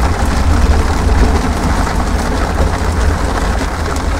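Heavy rain beating on the velomobile's shell as it rolls along, with a deep, steady rumble underneath.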